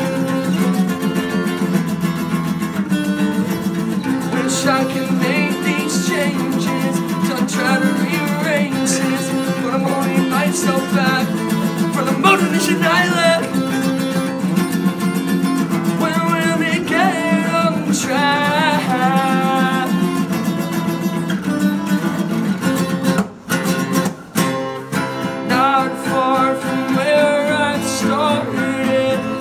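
Several acoustic guitars strummed together, with a man singing over them. The guitars break off for two short moments about two-thirds of the way in.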